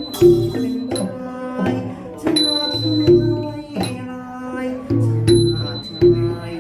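Thai classical ensemble music: drum strokes with ringing metal percussion and pitched tones, struck at an uneven beat.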